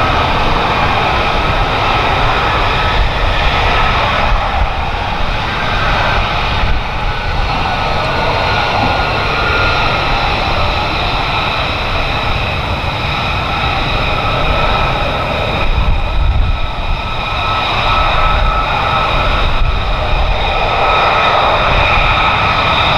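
F-35B fighter jet's Pratt & Whitney F135 engine running: a loud, steady rush with several high whining tones held throughout.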